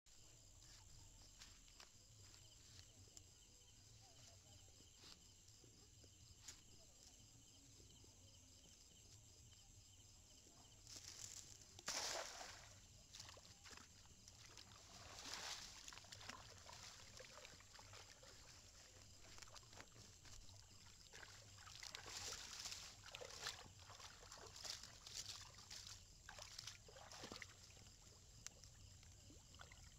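Faint, irregular rustling and sloshing from a wet fishing net being handled in wet grass at the water's edge, starting about eleven seconds in, with near silence before that.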